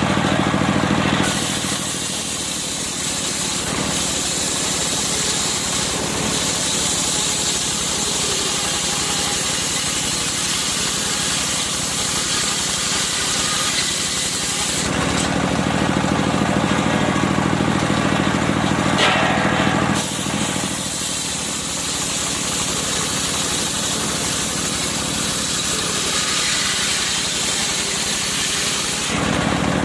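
Circular sawmill running, its blade cutting through a medang log twice: a long cut starting about a second in and lasting some 13 seconds, then a second cut of about 9 seconds. The hiss of the cut drops back to the drone of the engine and the spinning blade between the passes.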